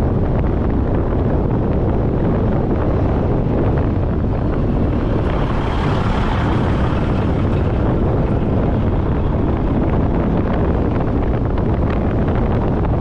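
Steady low rumble of running harvest machinery, heavily buffeted by wind on the microphone. The hiss grows slightly brighter around the middle.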